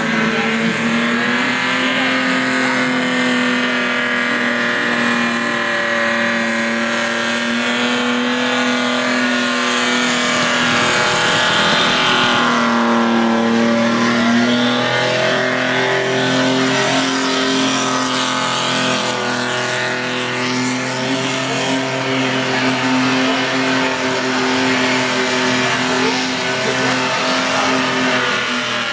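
A car's engine held at high revs through a burnout, the note wavering and dipping briefly about eleven seconds in, over the hiss and squeal of the spinning rear tyres.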